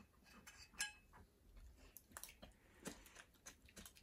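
Metal spoon scraping and clinking faintly against a ceramic bowl, a few light scattered clicks.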